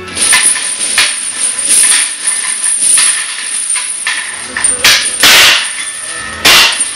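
Heavy steel chains hanging from a loaded barbell clanking and rattling against each other and the floor with each fast bench-press rep, about once a second, with the loudest metal clangs near the end as the bar is set back in the rack.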